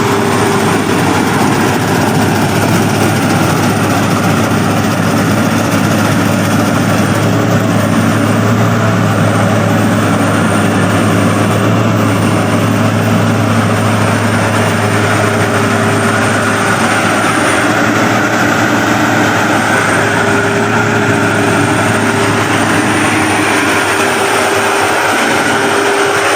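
Maxxi Bimo combine harvester running steadily at working speed, its engine holding a low hum with a thin high whine over it.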